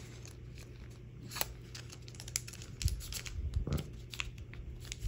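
Scissors snipping open a foil trading-card booster pack: scattered light clicks and crinkles of the wrapper, with a couple of soft low thumps about three seconds in.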